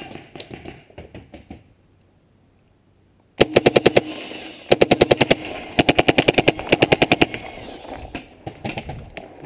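Paintball marker firing rapid strings of shots, about a dozen a second, in three bursts a little over a third of the way in. Before that there are scattered softer pops and a short quiet gap, and softer pops trail off near the end.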